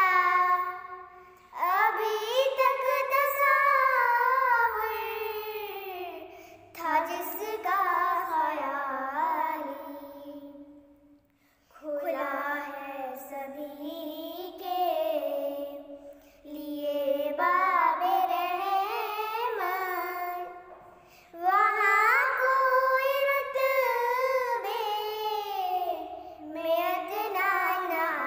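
Two young girls singing a naat, an Islamic devotional song, with no instruments, in long sung phrases with short pauses between them.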